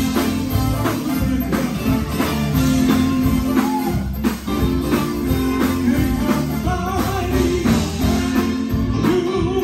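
Live gospel quartet with band: drum kit, electric guitar and bass keeping a steady beat, with lead and backing singers over it.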